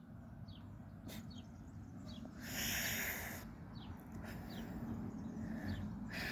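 Small birds chirping in short falling calls over faint outdoor background noise, with two long breathy exhales of a person, about a second each, near the middle and near the end.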